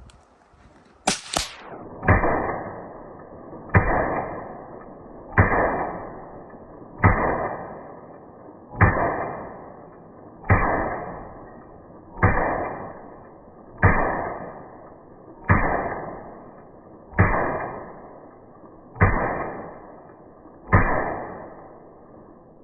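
Slowed-down shots from a rifle suppressed with a SilencerCo Omega 36M. After a brief sharp whoosh about a second in, there are twelve deep, evenly spaced booms about every 1.7 seconds, each dying away slowly.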